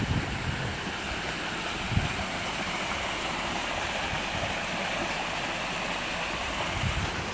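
Steady rush of water running in a concrete drainage ditch.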